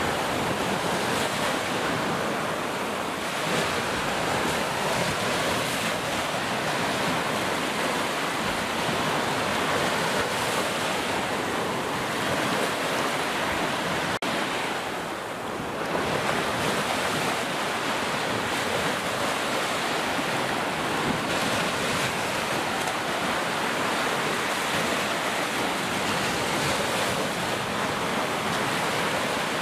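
Ocean waves crashing on a shore: a steady, unbroken rush of surf that eases briefly about halfway through.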